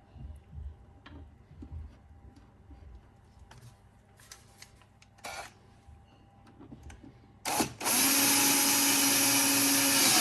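Light handling clicks and knocks, then from about seven and a half seconds a cordless electric screwdriver or drill runs steadily and loudly for nearly three seconds, driving in a pad-mounting screw.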